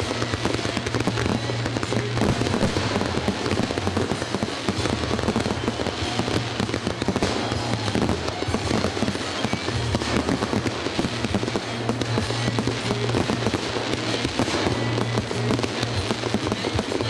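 Fireworks display going off continuously: a dense run of crackling pops and bursts from crackling fountains and aerial shells, with music playing underneath.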